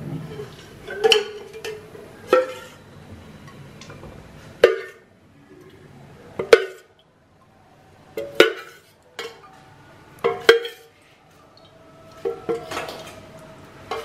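Metal pots, lids and utensils clinking and knocking against each other and the stove, a dozen or so sharp, separate clanks at uneven intervals.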